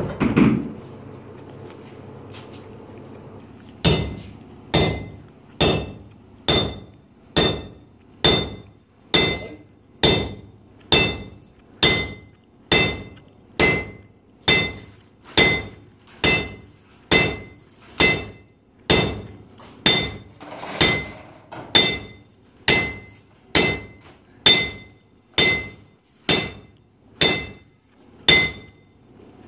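Blacksmith's hammer striking metal on an anvil, starting about four seconds in, in a steady rhythm of a little more than one blow a second. Each blow rings sharply.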